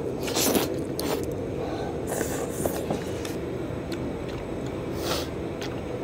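Slurping and chewing of knife-cut noodles from bowls of soup: several short sucking slurps, the strongest about half a second in, around two seconds in and near five seconds in.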